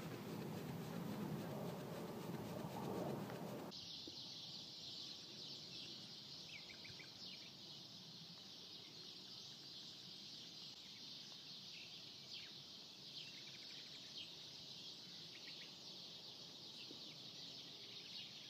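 Outdoor ambience: short bird chirps, some in quick little runs, over a steady high-pitched hiss. The hiss and chirps begin at a sudden change about four seconds in. Before that there is a few seconds of coarse rustling noise.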